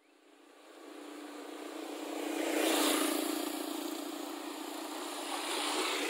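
A motorcycle engine approaching along the road, growing louder to its loudest about three seconds in and then running on steadily.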